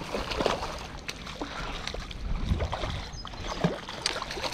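Irregular splashing and sloshing of water from a hooked trout thrashing at the surface as it is played in.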